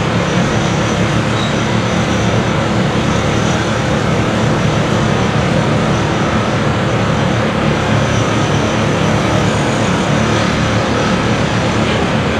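Diesel construction machinery, among it a Caterpillar 950H wheel loader, running in a loud, steady, unbroken din.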